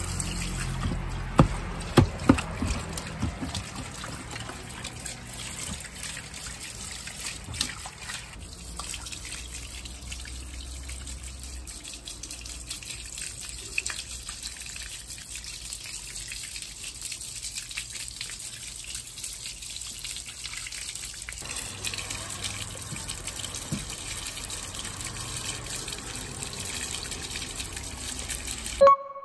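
Water running and trickling steadily, with a few sharp knocks in the first two seconds and a short tone near the end.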